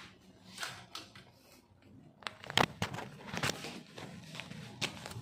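Handling noise from a handheld phone: a run of short knocks and rubs, the loudest a little past halfway.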